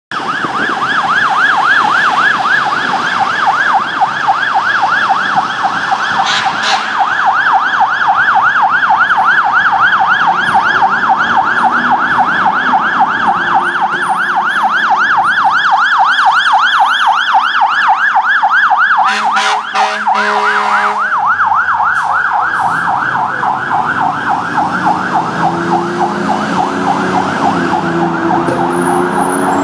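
Fire engine siren in a fast yelp, sweeping up and down about four times a second. About 19 seconds in, a two-second blast of the truck's air horn cuts in. Near the end the truck's engine can be heard accelerating under the siren as it pulls away.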